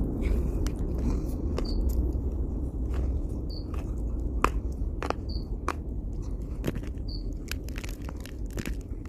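A person biting and chewing lumps of dry edible clay. There are irregular sharp cracks and crunches, the loudest about four and a half seconds in, over a steady low hum.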